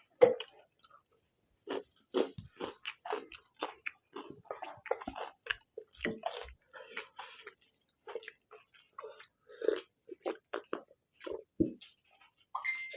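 People chewing and eating egg curry with rice: an irregular run of short chewing and mouth sounds, several a second, with a few sharper clicks.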